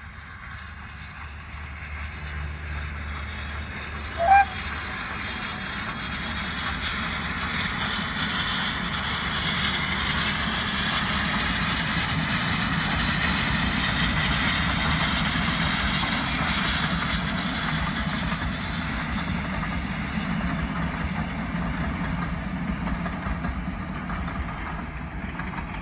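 A GWR steam locomotive hauling a train of coaches passes by, working steam. The rumble swells as it draws level and eases off as it runs away. A brief, loud high tone sounds about four seconds in.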